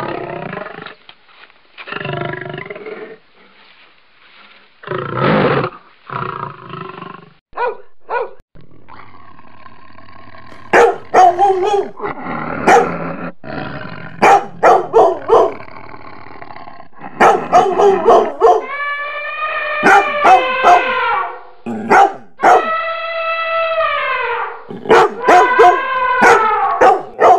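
Recorded animal sounds played from a loudspeaker as a wild boar scarer. A big cat roars several times at first, then dogs bark and, in the second half, howl in long wavering calls.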